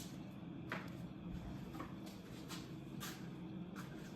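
Faint shuffling with a few soft, short knocks over a low steady hum.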